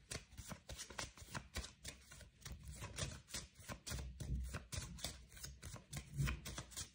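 A deck of Giovanni Vacchetta tarot cards being shuffled by hand: a quick, even run of card slaps and clicks, about four or five a second.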